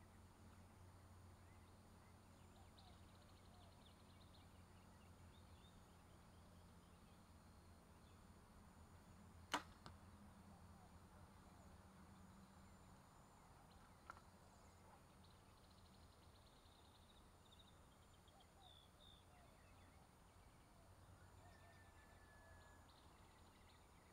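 A compound bow is shot once: a single sharp snap of the string and limbs, followed a fraction of a second later by a fainter knock. A smaller click comes about four seconds after. Faint birds chirp in the background.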